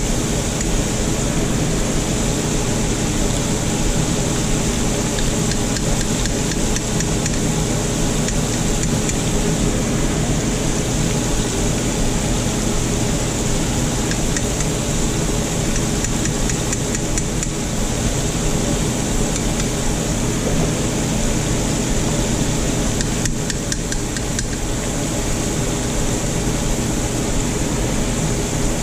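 Deep fryer running: a steady hiss with a low hum under it, without a break.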